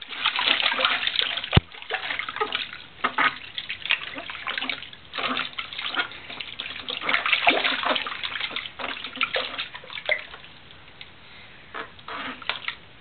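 Bath water splashing and sloshing in a plastic baby bath around a bathing baby, in irregular bursts that die down after about ten seconds, with a couple more near the end. Two sharp clicks near the start.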